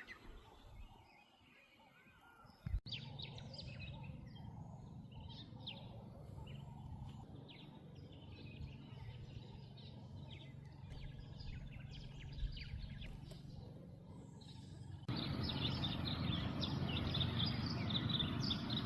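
Outdoor ambience of many small birds chirping over a steady low background rumble. It starts abruptly after a short silence, and about fifteen seconds in it jumps to a louder, busier background full of chirps.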